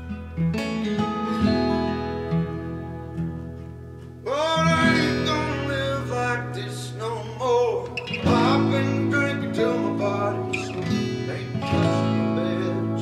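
Background music led by acoustic guitar, plucked and strummed over steady held bass notes.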